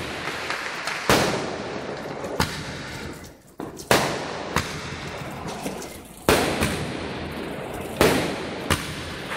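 Aerial fireworks bursting overhead: about six sharp, loud bangs at uneven intervals of one to two seconds, each trailing off, over a continuous din of other fireworks going off.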